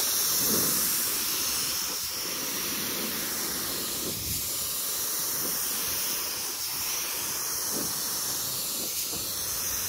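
Compressed-air paint spray gun hissing steadily while it atomises primer onto a steel trunk lid.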